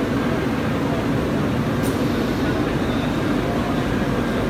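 Enclosed CNC top and face grinder running, a steady machine noise with a dense low rumble, over the background hubbub of a busy exhibition hall. A brief faint click comes about two seconds in.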